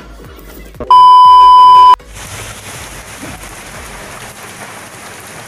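A loud electronic beep, one steady high tone held for about a second, then cut off sharply. After it, rain falls steadily on a wet street.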